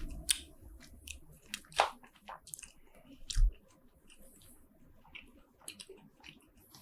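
Close-miked chewing of spicy seafood-bucket shellfish, with wet mouth clicks and smacks. There is one dull thump about three and a half seconds in.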